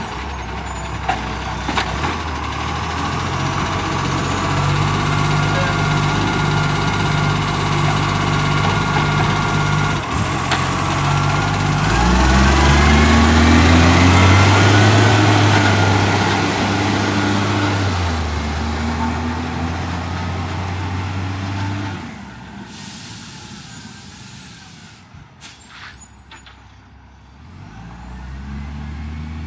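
Acco garbage truck's diesel engine, running with an exhaust leak, idling steadily, then revving up about twelve seconds in and holding higher revs for several seconds before dropping back. It goes much quieter over the last part, with short air hisses near the start and later.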